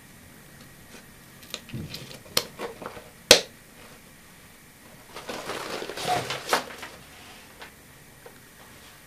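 Handling of a flecktarn fabric military bag: a few small clicks, then a sharp snap about three seconds in as a metal press-stud fastener is pushed shut. Then fabric rustling with light knocks for a second or two as the bag is set down on a wooden table.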